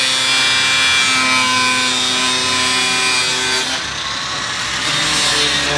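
Power tool cutting, a steady whine over a rasping hiss that eases about two-thirds of the way through.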